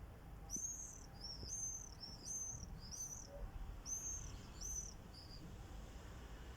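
A bird singing a phrase of about eight high, repeated arched notes spread over some five seconds, then stopping, over a steady low background rumble.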